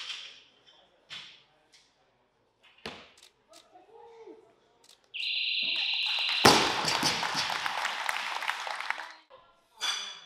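An electronic beep sounds for just over a second as the jerk is held overhead, the referees' down signal. A loud thud follows as the loaded barbell with bumper plates is dropped onto the lifting platform, and the crowd cheers for about three seconds.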